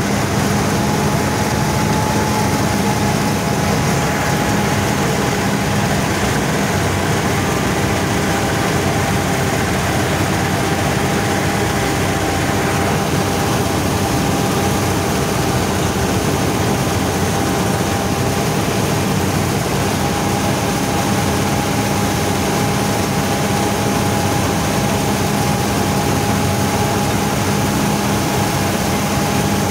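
Bizon Z020 combine harvester running under load while cutting wheat, heard from the driver's seat: a steady engine-and-machinery drone with a constant high whine running through it.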